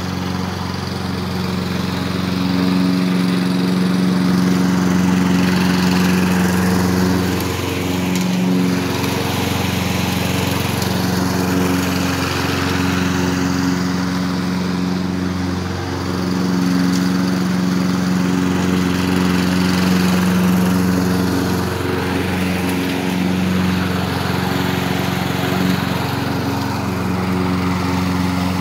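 Walk-behind gas lawn mower engine running steadily while the mower is pushed across grass, with brief small dips in level a few times.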